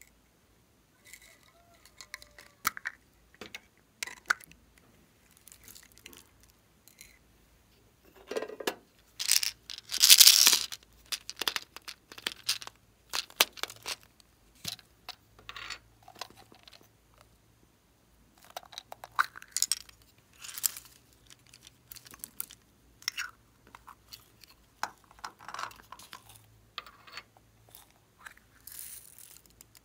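Hands squeezing and working soft squishy stress toys, a pineapple-shaped squishy and a yellow mesh stress ball: a string of short, irregular crinkling and crunching noises, loudest about ten seconds in.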